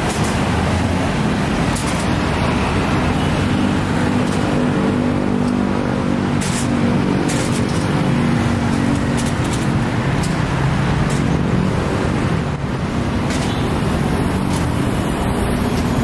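Steady traffic on a busy multi-lane city road: cars and other motor vehicles running and passing, with a low engine hum that swells and fades as vehicles go by.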